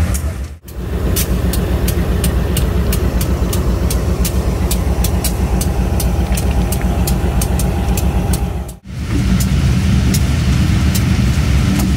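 Diesel locomotive engine running steadily, with a regular fast ticking about three times a second over it. The sound drops out briefly twice, about half a second in and near the end.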